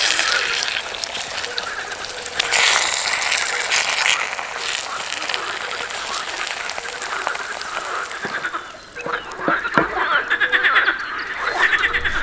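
Croaking animal calls: rapid rattling series of short pulses in the last few seconds, after some bursts of noise.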